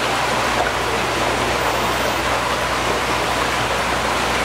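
Steady rush of running water, with a low steady hum underneath.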